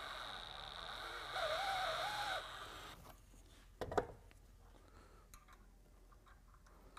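Drill running at low 'crawling' speed with a Uniburr Plus chamfering bit cutting the end of a 1/2-inch grade 8 bolt: a steady whine that grows louder and wavers in pitch in the middle, then stops about three seconds in. A single sharp knock follows about a second later.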